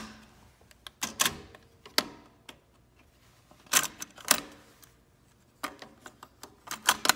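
Clicks and clunks from a Pioneer CT-F1250 cassette deck's door and transport as a cassette is pulled out, reseated and the door pushed shut: a pair of sharp clicks about a second in, a heavier pair around four seconds in and a quick run of clicks near the end. The deck is refusing to play.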